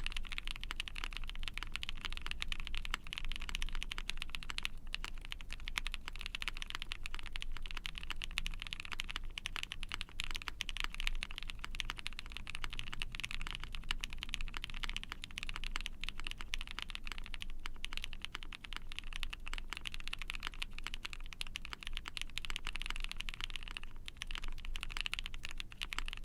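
Continuous typing on a mechanical keyboard fitted with all-nylon Tofu linear switches on 13.9 mm long-pole stems, factory lubed, in an Ai03 Vega with a POM plate, case and plate foam, and GMK Bingsu keycaps. It is a dense, unbroken stream of keystrokes.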